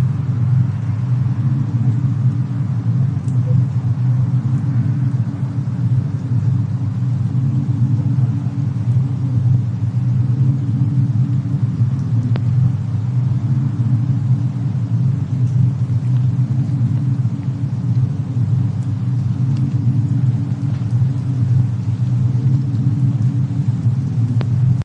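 Fireplace-and-snowstorm ambience: a steady low rumble, the roar of fire and storm wind, with a few faint crackles now and then.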